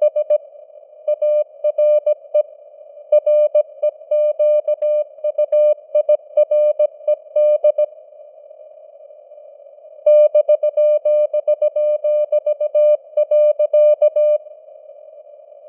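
Morse code (CW) sent at 17 words per minute as a single steady tone keyed in dots and dashes, over a hiss of simulated radio band noise. The keying pauses for about two seconds in the middle and stops near the end, leaving only the hiss.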